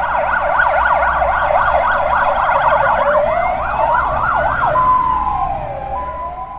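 Ambulance siren, its pitch sweeping rapidly up and down about four times a second, then changing about three seconds in to slower rising and falling sweeps. A low rumble runs beneath, and the siren fades near the end.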